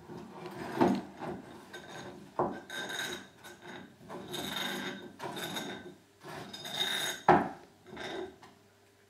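A puppy gnawing on a porcelain bowl, its teeth scraping and rasping against the rim in irregular bouts with a ringing tone, and a few sharp knocks as teeth or bowl strike. It stops shortly before the end.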